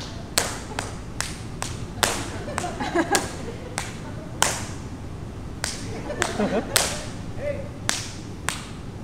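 A solo dancer's percussive footwork: sharp shoe taps and stamps on a wooden dance floor, a few strikes each second in an uneven rhythm with a short pause around five seconds in, and no music.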